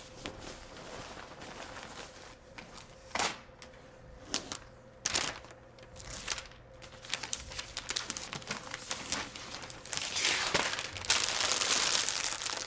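Protective packaging wrap, a paper sheet and then a frosted plastic sleeve, rustling and crinkling as it is pulled off a Mac Pro tower. There are a few louder rustles about three to five seconds in, and denser crinkling near the end.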